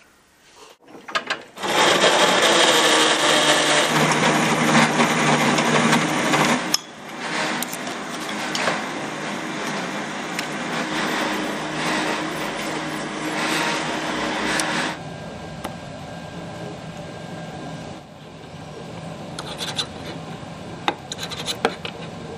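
A small power tool abrading a part for the rotor blade root reinforcement, with a steady motor hum under a dense scraping noise. It starts about a second and a half in and is loudest for the first five seconds. It then carries on somewhat softer and stops about fifteen seconds in, leaving lighter scrapes and clicks.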